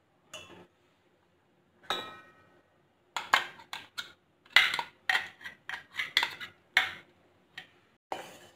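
A steel spoon scraping and knocking against a stainless-steel mixer-grinder jar and a steel pot as almond paste is scraped out into the milk. There is one ringing clink about two seconds in, then a quick run of sharp taps and scrapes, and rougher stirring near the end.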